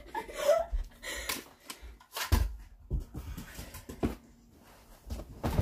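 A few separate dull thumps and knocks as a stuffed dummy in an office chair is hit and handled, the loudest about two seconds in.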